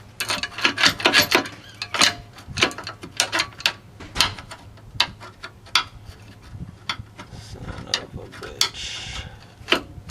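Hand tools clicking and clanking on metal in irregular sharp knocks while working a rusted sway bar end link loose, with a short scraping rub near the end.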